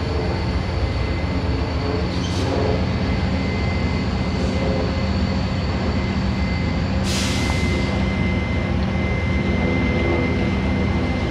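Diesel locomotive of a stopped passenger train idling, a steady low rumble, with a steady high tone above it and two brief hisses, about two and seven seconds in.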